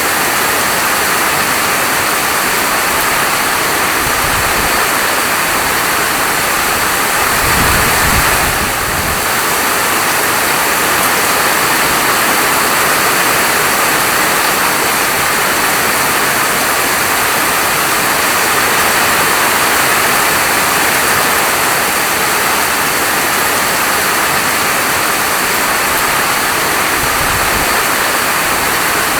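Steady, dense rainfall, a continuous even hiss of falling rain with no pauses, with a brief deeper rumble at about eight seconds.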